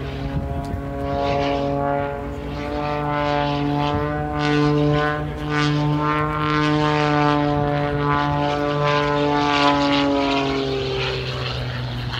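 Propeller-driven aerobatic plane performing overhead: a droning engine-and-propeller note that slowly rises and falls in pitch as it manoeuvres, fading away near the end, over a steady low hum.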